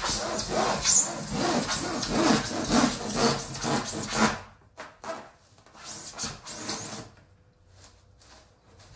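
Handsaw sawing through a rigid Kingspan foam insulation board in quick rasping strokes. The sawing stops about four seconds in, followed by a few softer scrapes and taps.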